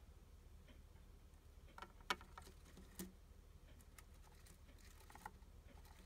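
Hamster chewing a cicada: faint, irregular crisp clicks and crunches as it bites through the insect's hard body, the sharpest about two seconds in.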